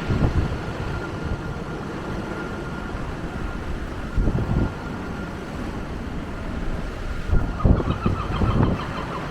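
Strong wind buffeting the camera's built-in microphone in three heavy gusts (near the start, about four seconds in, and toward the end) over a steady rush of road traffic; a brief pitched sound rises through the last gust.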